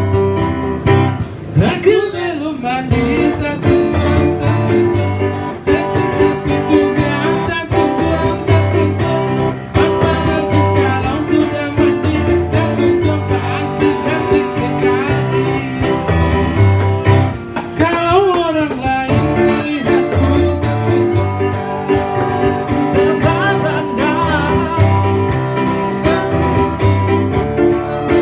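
A man singing, live through a handheld microphone, accompanied by an acoustic guitar with a steady, repeating bass line beneath. The sung phrases come and go over the ongoing guitar, with long wavering held notes about two seconds in and again around eighteen seconds.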